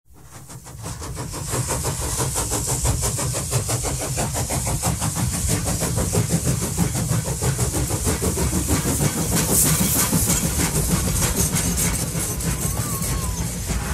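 Steam-hauled train on the move, heard from aboard: a fast, even beat of exhaust strokes with a hiss over it. It fades in over the first second or two.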